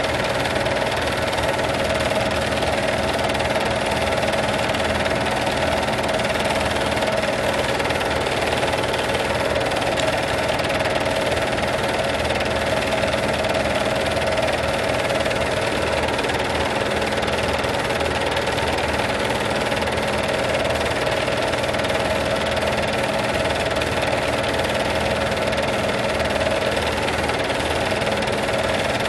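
Film projector running at a steady speed: an even mechanical whir with a constant hum.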